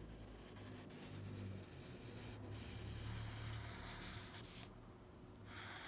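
Faint scratching of a drawing tool on paper, continuous strokes that pause for about a second near the end.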